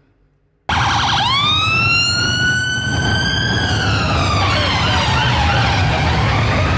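Sirens over the steady rumble of a busy street, cutting in suddenly after a moment of silence. One siren winds up from low to a high wail, holds, then slowly falls, and a second siren warbles quickly up and down from about halfway.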